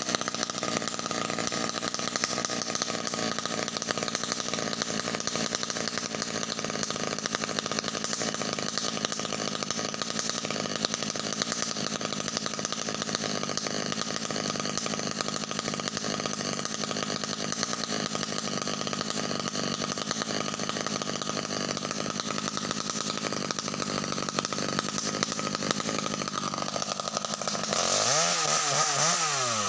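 Two-stroke chainsaw running steadily at idle, then revved up near the end, its pitch rising and the sound getting louder.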